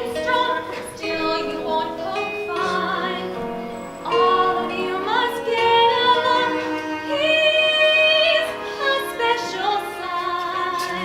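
Young cast singing a show tune over musical accompaniment, with long held notes and a pitch sliding upward about five seconds in.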